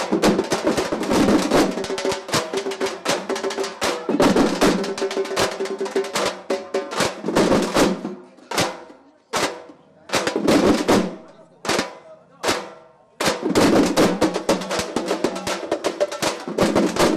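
A group of large double-headed drums beaten with sticks, playing a fast, dense rhythm. About eight seconds in the playing thins to a few separate strokes with gaps between them, and the whole group comes back in together about five seconds later.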